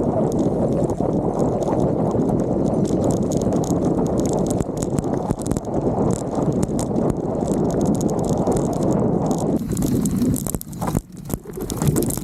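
Mountain bike riding fast down a rough dirt trail: a steady low rumble of tyres on dirt, with rattles and knocks from the bike over bumps. About ten seconds in, the rumble drops away and scattered clatter goes on.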